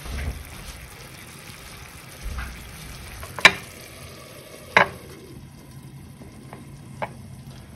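Chicken in red wine simmering steadily in a stainless steel frying pan on a gas hob. A glass lid clinks sharply onto the pan about three and a half seconds in, with a second clink nearly five seconds in and a lighter tap near the end.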